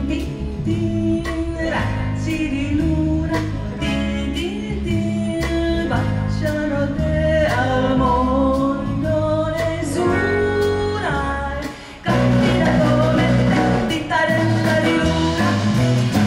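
Live rautalanka band playing through a PA: an electric guitar melody over bass guitar and drums, with a steady beat. About twelve seconds in, the music breaks off briefly and starts again louder.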